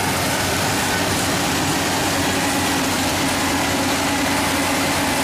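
Yanmar 82V rice combine harvester running steadily as it cuts, a constant engine drone with a dense hiss over it.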